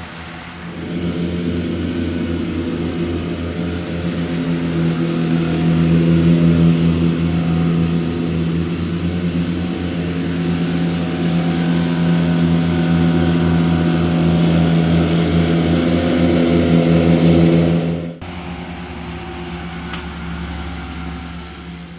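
Petrol lawnmower engine running steadily, getting louder about a second in. About eighteen seconds in the sound cuts abruptly to a quieter, lower hum.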